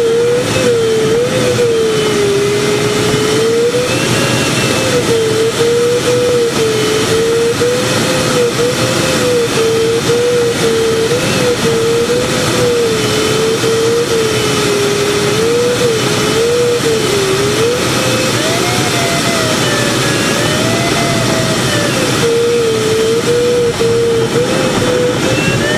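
Inside a glider's cockpit in flight: a steady rush of airflow over the canopy, with an electronic variometer's single tone wavering up and down in pitch as the climb rate changes, going higher for a few seconds about two-thirds of the way through.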